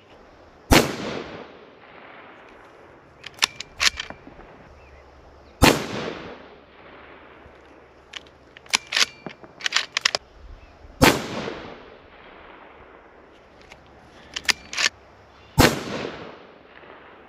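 Four shots from a Ruger 77/17 bolt-action rifle in .17 Hornet, fired without a suppressor about five seconds apart, each sharp crack trailing off over about a second. Between shots come short runs of metallic clicks as the bolt is worked to chamber the next round.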